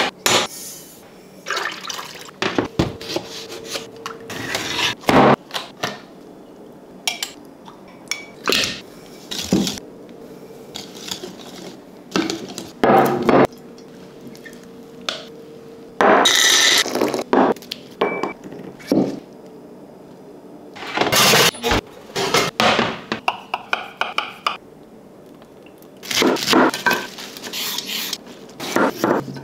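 Kitchen preparation sounds: clinks and knocks of a stainless-steel saucepan and utensils, liquid being poured, a silicone brush on a glass baking dish, and quick scraping strokes of a vegetable peeler on a carrot near the end.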